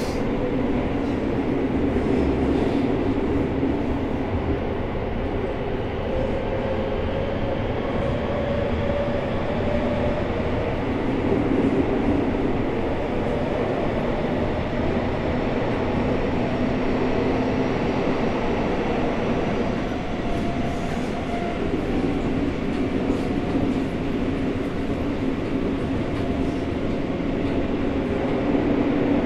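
Seibu 6000 series 50-series aluminium-bodied train with unrenewed Hitachi GTO-VVVF traction, heard from inside the car while running: a steady rumble with a low, even hum and no marked rise or fall in pitch.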